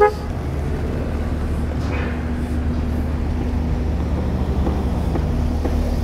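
A short car-horn toot right at the start, then steady vehicle engine and traffic noise with a low, even engine hum.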